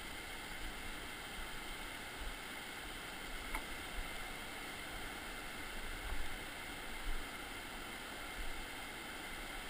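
Steady rush of whitewater rapids in a rainforest river, with occasional low thumps.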